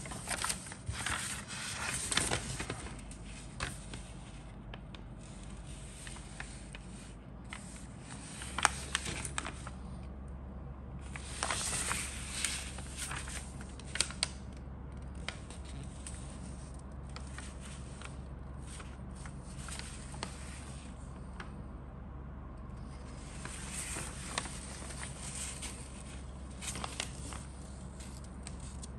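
Paper instruction sheet of a plastic model kit rustling and crinkling as it is unfolded and handled, in several bursts separated by short pauses.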